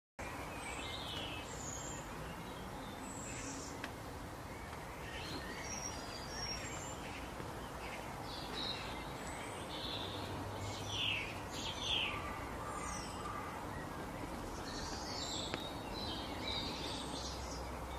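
Outdoor ambience with birds chirping: many short, scattered calls, a few of them quick downward notes, over a steady background rush.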